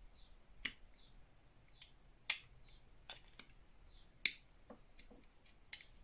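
Small sharp plastic clicks and snaps as a screwdriver pries apart the clips of a Xiaomi Mi Smart Wireless Switch's plastic housing: about nine scattered clicks, the loudest about two seconds and four seconds in.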